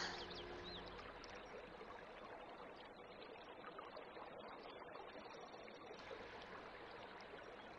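Faint, steady hiss of background noise, with no distinct events.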